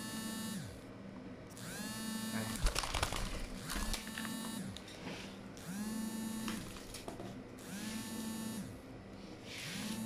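A mechanical whir that spins up, holds briefly and winds down again about every two seconds, like a small electric motor switching on and off, with a short clatter about three seconds in.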